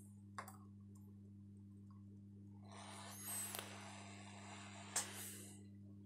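Hot air rework station running over a laptop motherboard, giving a steady low hum. There are a few light clicks from tweezers at the board, and a brief crackling hiss about three seconds in.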